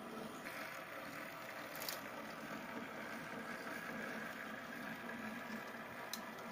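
HO scale diesel switcher locomotive running on the layout, a steady engine-like hum that gets louder about half a second in, with two short clicks, about two seconds in and near the end.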